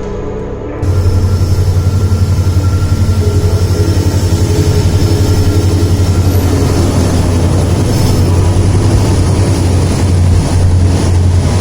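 A vehicle engine running with a loud, steady low throb, about five pulses a second; it starts about a second in.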